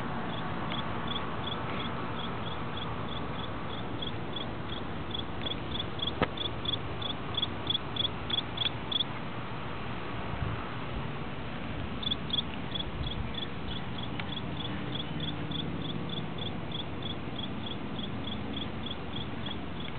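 A cricket chirping in an even rhythm, about three chirps a second, high-pitched and louder for a few seconds around the middle.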